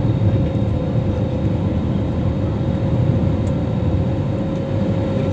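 Jet airliner cabin noise: the engines and rushing air heard from a window seat over the wing as the plane climbs after takeoff, a steady low rumble with a constant hum.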